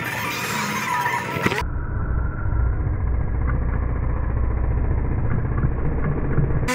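Motor scooter engine idling: a low, steady rumble, muffled, that starts abruptly about a second and a half in.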